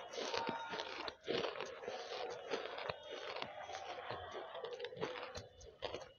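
Banslochan (tabasheer) being chewed close to a headset microphone: a dense run of many small, dry crunches.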